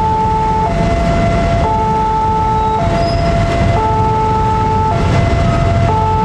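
Railroad crossing warning alarm sounding its electronic two-tone signal, stepping between a higher and a lower tone about once a second, to warn that a train is approaching. Steady road traffic rumbles underneath.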